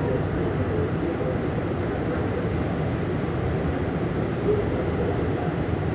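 Steady rumbling ride noise of an MRT-3 train running on the elevated line, with no clear clacks or other sudden sounds.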